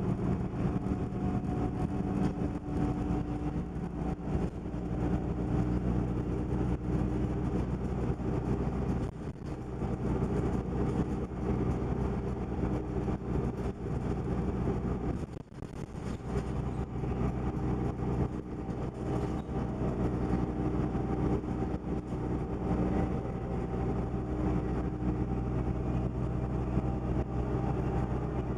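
1998 New Flyer D30LF diesel transit bus cruising: steady engine and drivetrain drone mixed with road noise, heard from inside the passenger cabin, with a brief dip about halfway through.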